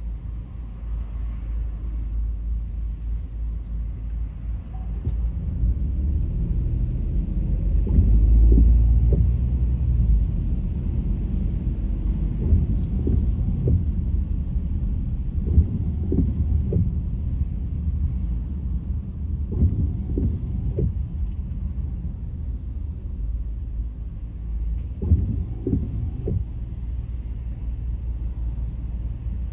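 Low, steady road and engine rumble of a car being driven, swelling about eight seconds in, with a few short knocks along the way.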